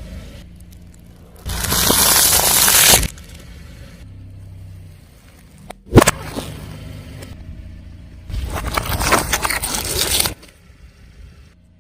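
A car tyre rolling over and crushing crunchy objects, in three separate crushes: a noisy crunch about a second and a half in, a sharp crack about six seconds in, then a longer crackling crunch from about eight seconds.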